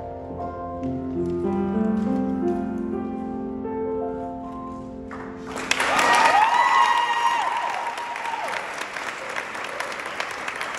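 Piano playing the closing chords of a song accompaniment, held notes that die away; about five and a half seconds in, an audience breaks into applause, with a whooping cheer over it.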